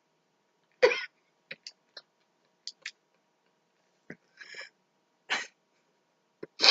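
A person giving a few short coughs and throat-clearing noises, with small mouth clicks in between, while eating.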